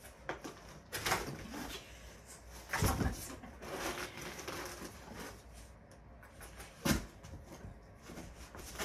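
A few sharp knocks and soft rustles, the loudest about three seconds in and just before seven seconds.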